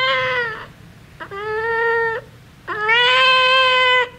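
A domestic cat meowing: a long meow ends under a second in, then two more follow, each a second or more long and held at a nearly level pitch.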